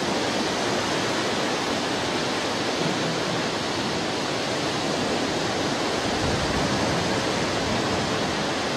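Steady rushing noise of surf and wind, even throughout, with no distinct engine sound standing out.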